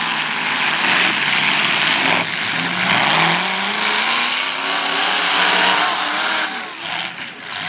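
Several demolition derby cars' engines revving at once, their pitch rising and falling as the drivers accelerate and back off.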